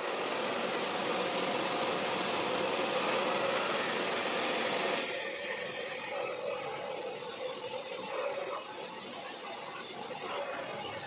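Handheld hair dryer blowing on wet hair: a steady rush of air over a motor hum, which drops a little in level about five seconds in.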